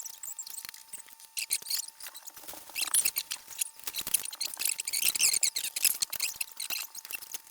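Small plastic building-block pieces clicking and rattling, in quick irregular clicks as pieces are handled and pressed together, busiest through the middle seconds.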